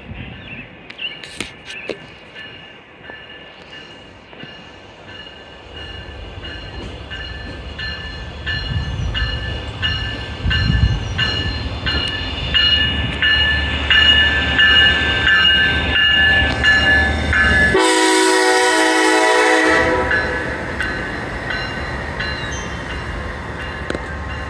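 A grade-crossing bell rings steadily, about twice a second, while an Amtrak train led by a Siemens Charger diesel locomotive approaches and its engine grows louder. About three-quarters of the way through, the locomotive's horn sounds one blast of about two seconds, the loudest sound. The train's bilevel Superliner cars then roll past with a steady rumble.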